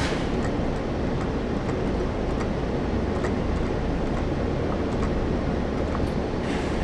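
Steady background din of a busy arcade, with a few faint clicks scattered through it.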